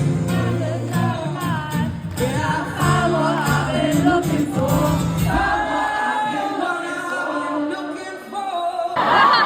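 Live acoustic music: singing over acoustic guitar. The guitar's low accompaniment drops out about six seconds in while the singing carries on, and a louder swell of voices comes near the end.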